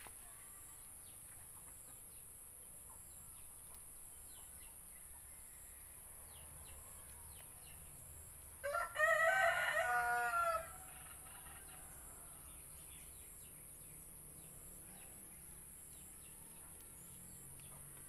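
A rooster crows once, a call of about two seconds about halfway through, over faint bird chirps.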